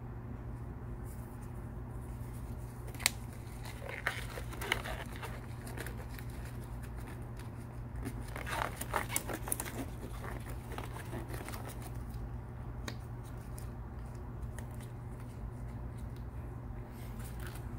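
Sterile gloves being pulled on from their paper wrapper, with crinkling and rustling in two spells, around four to five seconds in and again around eight to ten seconds in, and one sharp click about three seconds in. A steady low hum runs underneath.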